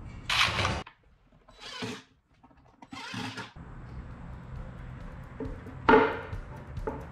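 Hand work on pine boards at a workbench: wood rubbing and scraping in three short bursts, then a sharp wooden knock about six seconds in.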